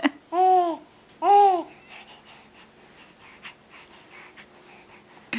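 Young infant cooing: two short coos about a second apart, each rising then falling in pitch, followed by a few faint clicks.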